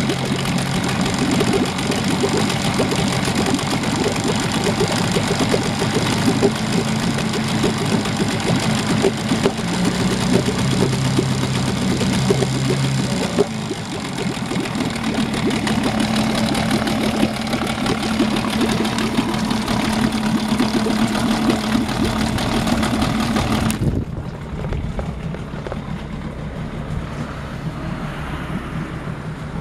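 Small outboard motor running with its lower unit in a plastic bin of water, the propeller churning and splashing the water: a test run out of the water. The engine note steps up to a higher pitch about halfway through, and the engine sound cuts off abruptly near the end, leaving a quieter outdoor background.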